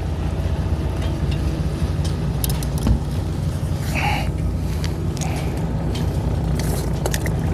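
Fishing boat's engine running with a steady low hum. A brief higher-pitched sound comes about four seconds in.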